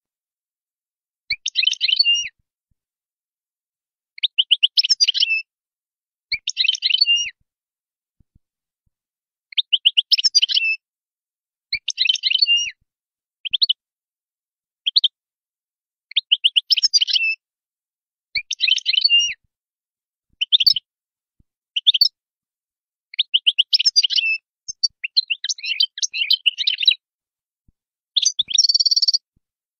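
European goldfinch singing: short phrases of fast, tinkling twittering notes, each under a second long, separated by pauses of about a second, with a couple of single short notes mid-way and a buzzier phrase near the end.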